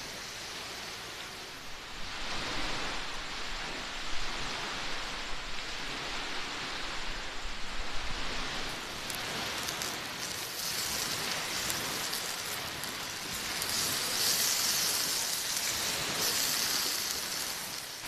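Meat sizzling on the grate of a small folding wood-burning camp stove over glowing embers: a steady hiss that swells about two seconds in and turns brighter and more spitting near the end, with a couple of sharp clicks.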